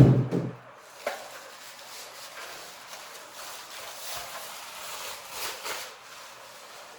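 A heavy thump at the start and a smaller knock about a second in, followed by soft rustling and scraping of packaging as a boxed speaker is unpacked from its cardboard box.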